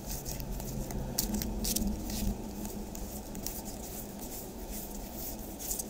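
Baseball trading cards being flipped and slid against each other by hand: a run of light, irregular clicks and swishes over a low steady background hum.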